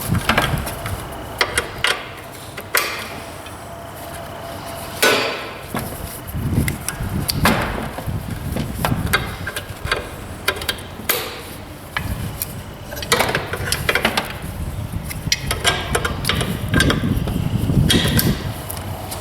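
Irregular metallic clicks and clanks of hydraulic hose quick-couplers and fittings being handled and pushed together while the loader's hoses are connected to a Kubota BX24 tractor.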